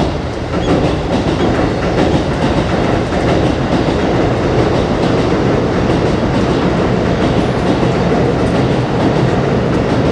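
Train passing on elevated tracks directly overhead, heard from the space below: a loud, dense rumble and clatter that comes in suddenly and stays at an even level.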